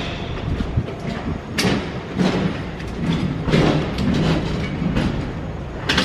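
Upright refrigerator being pushed and shuffled across the floor by hand: a low rumbling drag broken by several knocks and scrapes of the cabinet against the floor and door frame.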